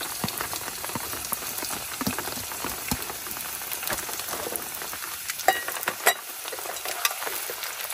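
Onions and chillies sizzling in hot oil in a pan, a steady hiss full of small crackling pops. There are two sharper clicks about five and six seconds in.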